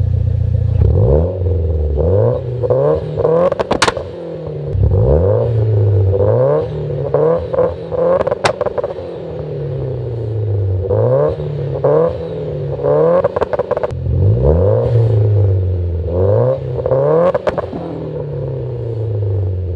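Mitsubishi Lancer's turbocharged 4B11T four-cylinder revved repeatedly against a two-step launch limiter with spark cut. Each rev climbs, holds in a rapid stuttering crackle, then drops back, with sharp pops from the exhaust, the loudest three spread through the run.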